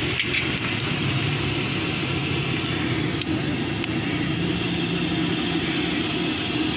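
Slanti (papad fryums) frying in a large wok of hot oil: a steady sizzle over a continuous low roar, with a few faint clicks.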